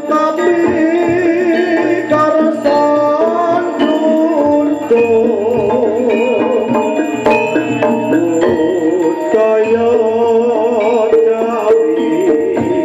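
East Javanese jaranan accompaniment music: a wavering, ornamented melody line over steady drum strokes and percussion.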